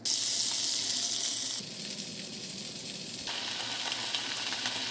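Food sizzling in a hot pan, a steady frying hiss that starts suddenly, then changes abruptly in level and tone about a second and a half in and again past three seconds.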